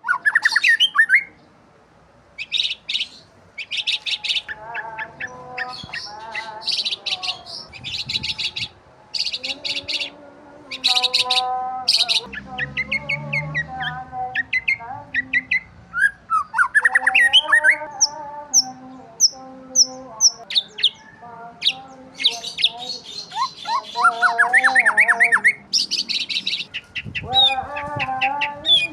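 Birds chirping and calling: runs of short, high chirps with lower, wavering calls in between, and a few squawks.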